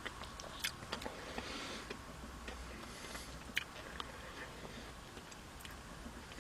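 Faint eating sounds of someone tasting a spoonful of ice cream: scattered soft clicks and mouth noises, with a few sharper clicks.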